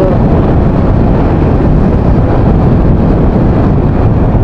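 Loud, steady low rumble of wind and road noise on an Ausek S60 action camera's built-in microphone while riding a motorcycle.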